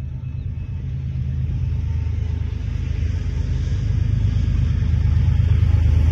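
Diesel locomotives of an approaching BNSF freight train: a low engine rumble growing steadily louder.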